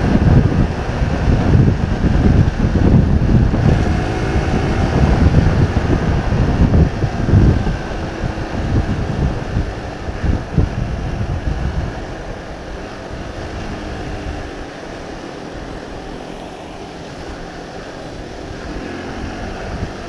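Wind buffeting a motorcycle rider's external action-camera mic while riding, over the bike's running engine. The low rumble is heavy for the first eight seconds or so and eases off from about twelve seconds in.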